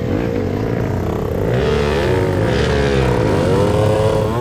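Trail motorcycle engines running and revving up and down, with more than one engine's pitch rising and falling at once.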